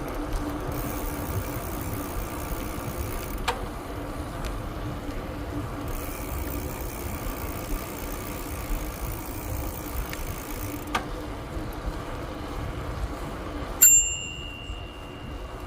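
Bicycle riding with steady wind and rolling noise and a couple of light clicks; near the end a bicycle bell is rung once, its sharp ding ringing out for about a second.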